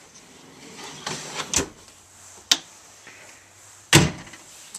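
A pull-out cabinet shelf sliding with a scraping rumble, then a sharp click, and a cabinet door shutting with a loud knock near the end.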